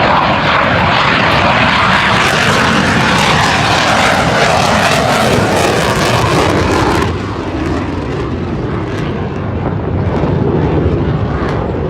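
Jet fighter passing close in a loud flyby, its engine noise a dense roar that falls off and loses its hiss about seven seconds in as it moves away.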